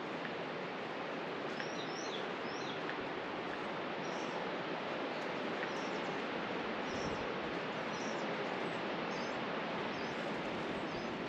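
Steady rushing background noise with small birds giving short, high chirps here and there.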